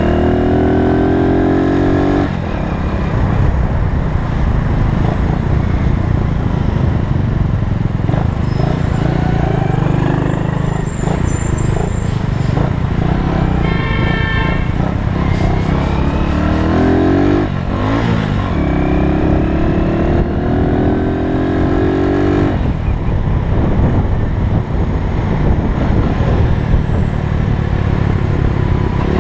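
Honda S90's small single-cylinder four-stroke engine running under way, heard from on the bike, with wind noise over the microphone. The engine note drops briefly about two seconds in and again past halfway, as with gear changes, and then holds steady.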